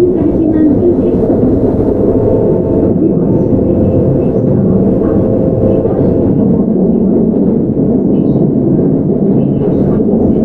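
Steady running noise of a Keihan 9000-series electric train with Toyo GTO-VVVF control, heard from inside the car: a dense rumble of wheels on rail and running gear, with a faint steady hum over it.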